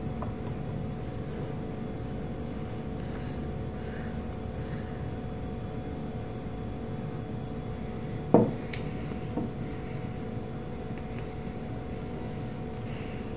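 Steady low background hum with a faint held tone, and a single sharp knock a little past eight seconds in.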